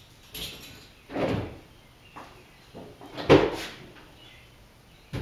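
A handful of separate knocks and clunks, about four in all, the loudest a little over three seconds in.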